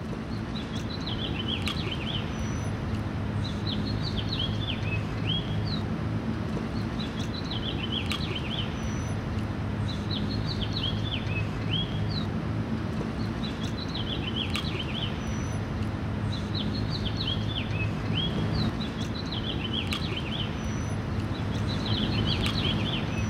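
Birds chirping and twittering in short high phrases that recur about every two seconds, over a steady background of noise with a constant low hum.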